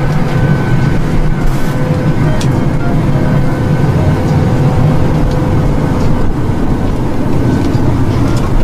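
Steady low rumble of a jet airliner cabin, with a faint steady whine above it and an occasional small click.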